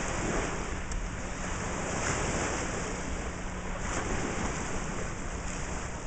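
Small lake waves washing onto a sand beach, with wind buffeting the microphone in a steady low rumble.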